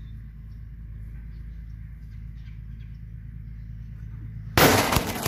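A steady low hum, then about four and a half seconds in a sudden loud crash as a thrown football hits the propped-up phone that is recording, followed by a second knock as the phone tumbles over.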